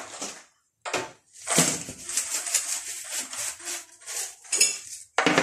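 Clattering and knocking of plastic storage baskets, containers and food packets being moved around and set down on a pantry shelf, in a few separate bouts, the longest in the middle.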